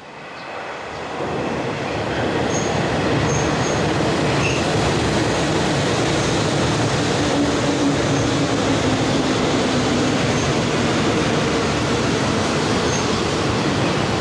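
Electric train running on the rails, its noise building over the first two seconds and then holding steady.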